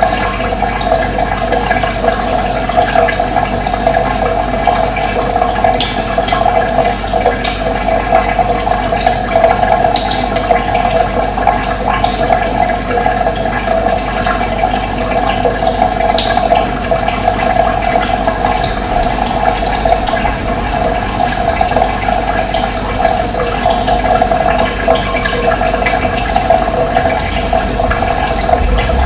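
Running water: a steady, loud rushing flow that stays even throughout.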